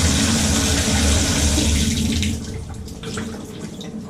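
Water running hard from a Moen tub and shower faucet, shut off about two seconds in, followed by a few faint clicks and knocks.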